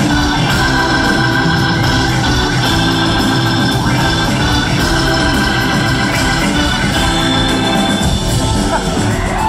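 Live rock band in full instrumental flow, an organ holding long sustained chords to the fore, recorded loud from the audience.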